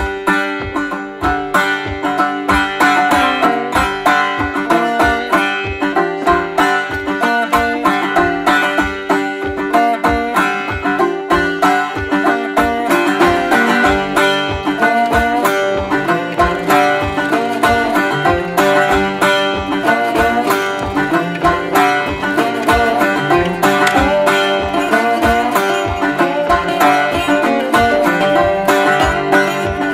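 Background music: an upbeat banjo-led, bluegrass-style tune of plucked strings over a steady beat.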